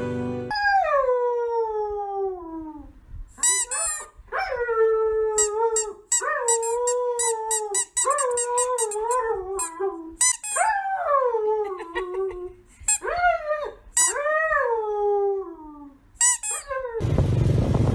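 A dog howling and whining in a long series of drawn-out calls that glide mostly downward in pitch, with short high squeaky yelps between them. Near the end a steady rushing noise cuts in.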